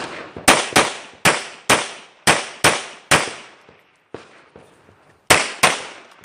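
Rapid fire from a Glock 34 9 mm pistol during a timed match stage: about seven shots in quick pairs over the first three seconds, a pause of about two seconds, then another quick string of shots near the end.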